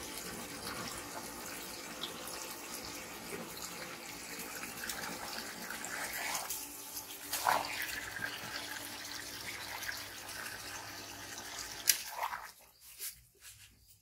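Water pouring from a hose into a plastic basin, a steady rushing splash that cuts off about two seconds before the end, just after a sharp click.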